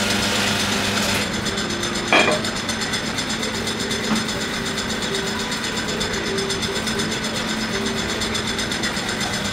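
Steady mechanical whirring of café coffee-making machinery as a barista prepares the drinks, with a short sharp sound about two seconds in.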